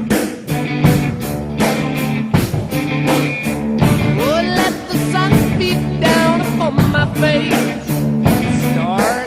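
Rock music with a steady drum beat under sustained chords, and a lead line that glides up and down in pitch.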